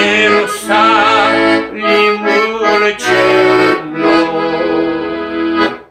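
Piano accordion playing the instrumental closing bars of a hymn tune, with no singing: a few sustained chords changing about once a second, ending on a long held chord that stops sharply just before the end.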